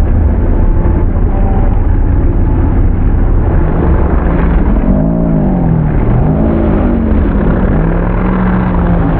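Mud truck's engine at full throttle, its pitch sweeping up and down several times in the second half as the revs rise and fall, over a dense low rumble.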